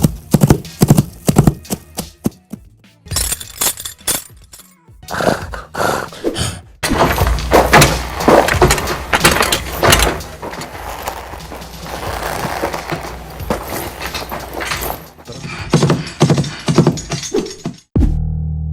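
Foley imitation of horse sounds made without a real horse: a run of sharp knocks and thuds, a few each second at first, then denser noisy scraping and knocking, with background music.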